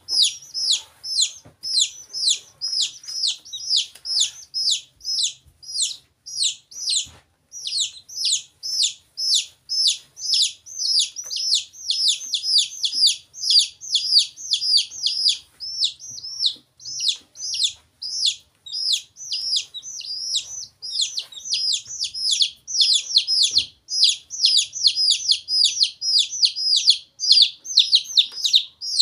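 Baby poultry (young chicks and a duckling) peeping: a nonstop run of short, high, falling peeps, several a second.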